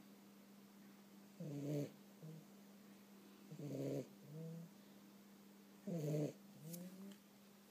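Cat snoring while asleep: three snoring breaths about two seconds apart, each a louder snore followed by a shorter, softer one. A faint steady hum runs underneath.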